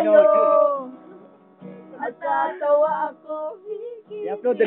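Voices singing to a strummed acoustic guitar. A held sung note slides down in the first second, there is a short lull, then the singing picks up again.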